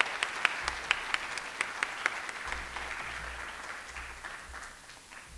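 Audience applauding, with a few louder single claps standing out over the first two seconds; the applause thins out and fades away near the end.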